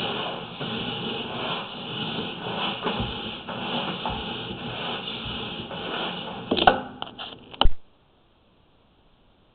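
Steady rubbing, scraping noise of a sewer inspection camera's push cable being pulled back through the line, with a couple of sharp knocks near the end, after which the sound cuts off suddenly to near silence.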